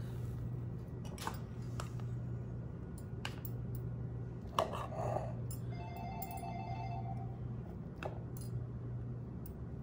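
A telephone rings with a pulsing, trilling tone for about two seconds, starting about six seconds in. A spatula taps and scrapes against a metal measuring cup a few times while scooping thick cream filling, over a steady low hum.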